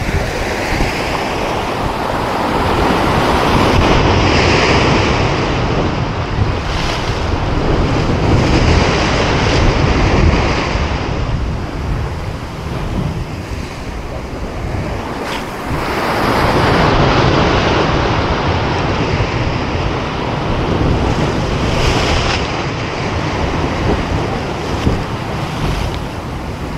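Heavy ocean surf breaking and washing over rocks, swelling and easing every several seconds, with wind buffeting the microphone.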